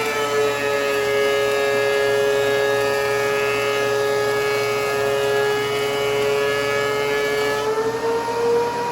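DeWalt DW735X thickness planer cutting a board, with a shop vac running on its dust port. The steady motor whine drops slightly in pitch under the load of the cut, with a high hiss from the cutterhead. Near the end the hiss stops as the board clears, and the whine rises back to its free-running pitch.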